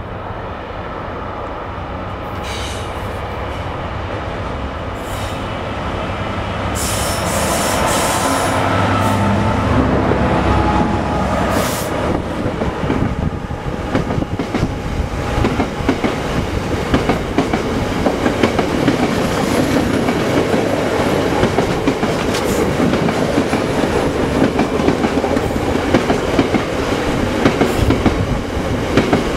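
A loaded coal train passes behind a Class 66 diesel locomotive. The locomotive's engine grows louder over the first ten seconds or so as it approaches and goes by. For the rest of the time the loaded coal hopper wagons roll past with a fast, uneven clatter of wheels over the rail joints.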